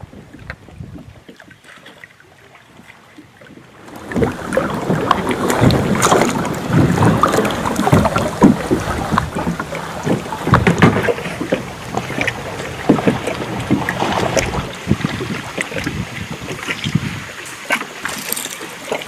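Water and wind noise on a fishing kayak. It is quiet at first, then about four seconds in it turns loud and choppy with irregular knocks and splashes.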